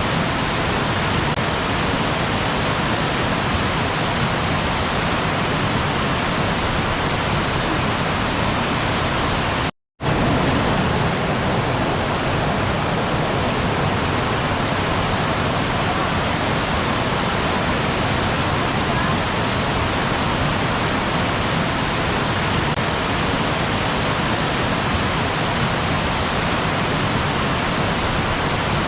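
Waterfall: a steady rush of falling water. It cuts to silence for a moment about ten seconds in, then resumes unchanged.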